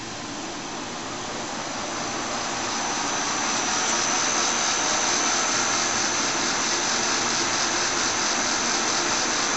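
1953 Monarch 10EE lathe spindle, driven by a 7.5 horsepower AC vector drive, spinning up after being put in gear. The running noise swells over the first few seconds and then holds steady, with a high thin whine.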